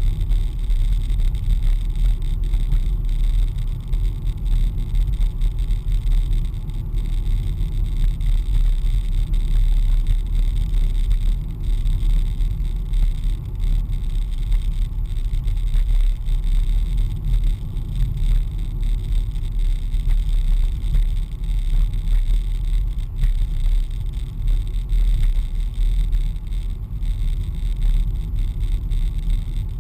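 Car cabin noise while driving steadily: a continuous low rumble of engine and tyres on the road surface.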